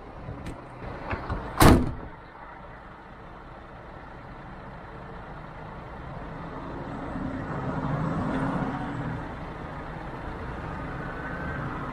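A few sharp knocks and one loud bang in the first two seconds, then a truck's engine running steadily, growing louder around eight seconds in.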